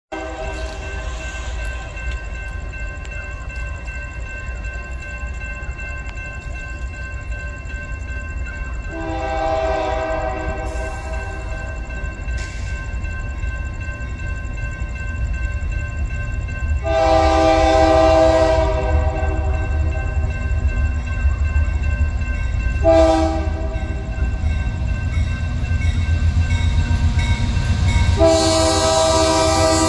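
Union Pacific diesel locomotive's air horn sounding the grade-crossing signal as the train approaches: two long blasts, a short one, then a last long blast starting near the end. Under it a crossing bell rings, and a low engine rumble grows gradually louder.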